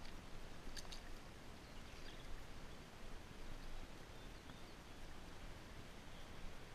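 Quiet outdoor ambience: a faint steady hiss, a light click about a second in, and a few faint high bird chirps.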